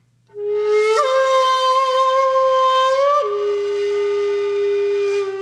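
Background music: a single reedy wind-like melody line holding three long notes. It comes in about a third of a second in, steps up about a second in, and drops back to a lower held note a little after three seconds.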